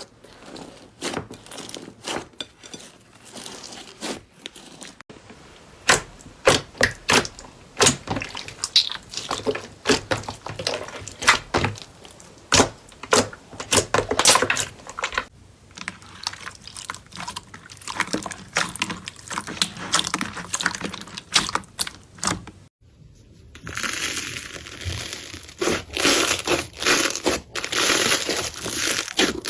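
Slime being pressed and worked by hand close to the microphone, giving a run of sharp pops and clicks. After a short break near the end, a denser, faster crackling takes over.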